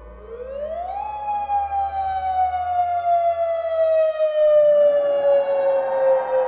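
Outdoor civil defense sirens sounding a tsunami warning. One winds up steeply in the first second, then holds a wail that slowly falls in pitch. A second siren starts up about four and a half seconds in and layers over it, growing louder.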